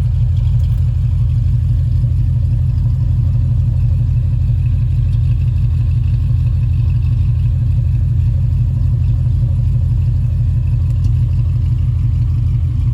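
2011 Mustang GT's 5.0 V8, fitted with headers and an MBRP race exhaust, idling steadily with a deep, even exhaust rumble.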